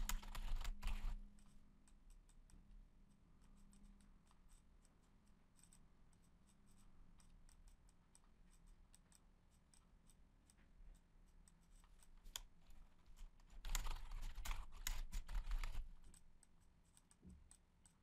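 Computer keyboard typing in two short runs, one at the very start and another about fourteen seconds in, with a few scattered single clicks between.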